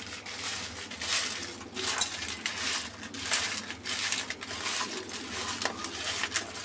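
Crisp fried potato fries tossed by hand in a steel plate: dry rustling and scraping of the fries against the metal in repeated strokes.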